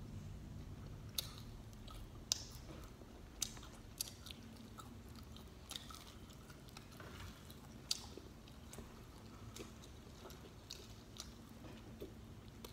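Faint close-up chewing of soft bread, with small irregular mouth clicks about once a second.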